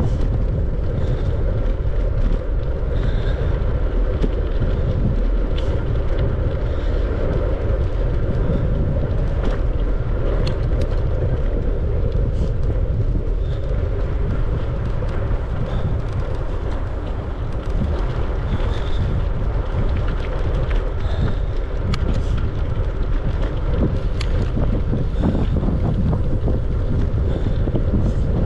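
Steady wind noise on the microphone of a camera riding along on a moving bicycle, a continuous low rushing that stays even throughout.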